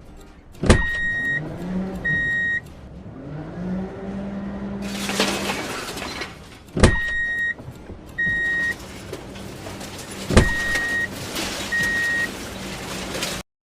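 Machine-engine sound effect: a steady low hum that rises and falls a couple of times in the first few seconds, with a sharp knock three times, each followed by two short high beeps.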